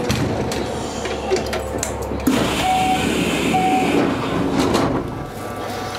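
Interior of a stationary Kintetsu electric train: a steady mechanical hum, with a hiss joining about two seconds in and two short beeps near the middle.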